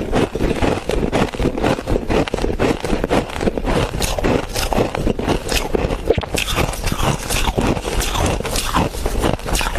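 Freezer frost (bitter-buckwheat frost) being bitten and chewed close to the microphone: a dense, unbroken run of crisp, crackly crunches and scrapes, several to the second.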